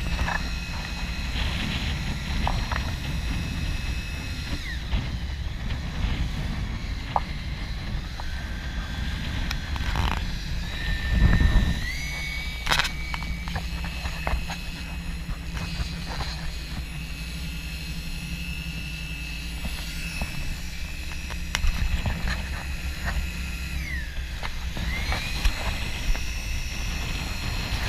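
Boat underway at sea: a steady low engine rumble mixed with wind and rushing water on the microphone. A thin high whine above it steps up and down in pitch a few times, and there is a louder surge of noise about ten seconds in.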